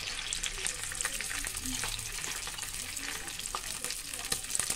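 Makhana (fox nuts) frying in hot ghee in a kadhai: a steady sizzle with many small crackles, just after the nuts are dropped in.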